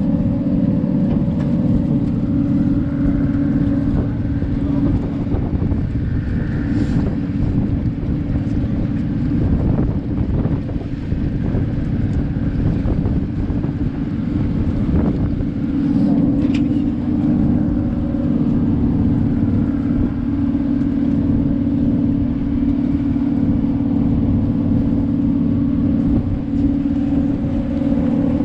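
Boat engine running steadily at a constant pitch, heard from on board, with wind buffeting the microphone.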